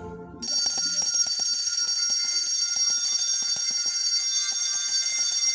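Many small handbells shaken together by a group of children, a continuous shimmer of high ringing with little clicks of the clappers, starting about half a second in.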